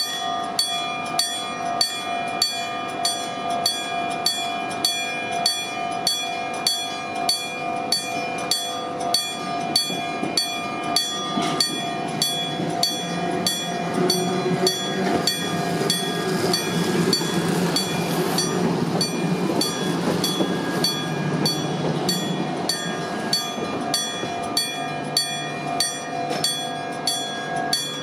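Japanese railway level-crossing warning bell ringing in evenly spaced strikes. A train rumbles through the crossing from partway in until a few seconds before the end.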